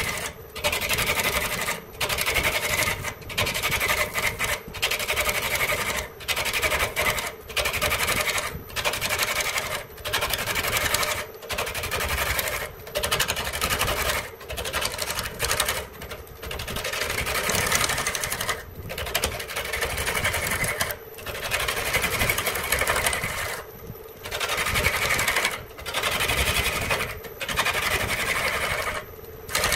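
Rhythmic scraping strokes of a hand tool worked back and forth over wood, somewhat more than one stroke a second with short breaks between strokes.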